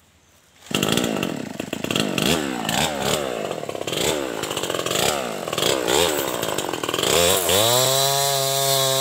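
Stihl 070 two-stroke chainsaw, starting suddenly just under a second in, its engine pitch rising and falling over and over as the throttle is worked. From about seven seconds in it climbs to a steady high full-throttle note as the chain cuts into the dead wood.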